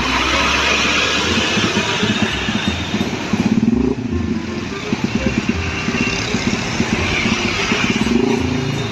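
A large Isuzu fuel tanker truck's diesel engine running as the truck moves slowly through traffic, mixed with the engines of nearby motorcycles.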